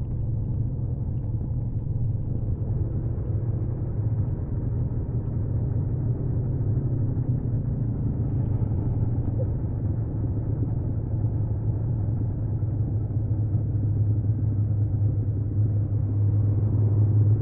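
1979 Honda CBX 1000's inline six-cylinder engine on its stock exhaust, running at steady, moderate revs under way. The revs and level rise a little near the end.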